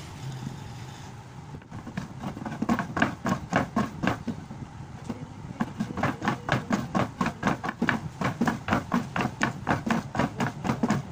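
Thread being wound onto a cricket bat handle as the bat is turned over and over by hand. About two seconds in, a regular rubbing and knocking begins, roughly three or four strokes a second, and it keeps going.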